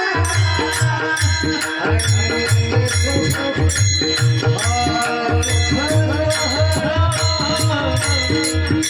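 Devotional Marathi bhajan music: mridang drumming and jingling metallic percussion keep a steady beat under a sustained melody.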